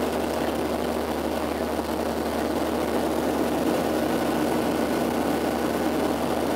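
Steady cabin noise of a Boeing 737-700 in flight just after takeoff, heard from a seat over the wing: the CFM56-7B turbofan engines and the rushing airflow make an even drone, with a low steady hum beneath it.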